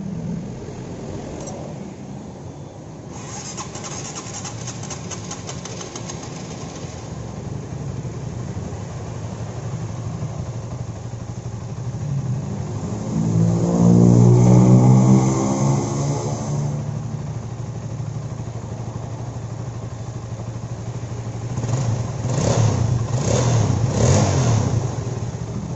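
Honda CB150R's single-cylinder four-stroke engine running, revved once about halfway through and blipped three times near the end. The rough 'kletek-kletek' clatter is gone now that the cam chain and its guide have been refitted and the valve timing reset.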